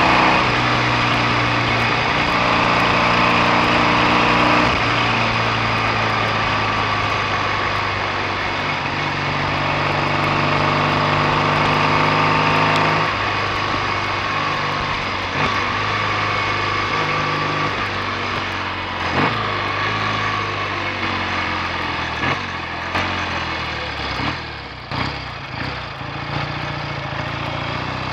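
BSA A65 650 cc parallel-twin engine running on the road, its note dropping in steps several times as the bike slows. Later it runs low and uneven with a few sharp pops, then picks up again near the end.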